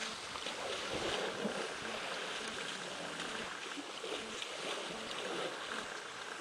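Water sloshing and splashing steadily as elephants wade through a muddy waterhole.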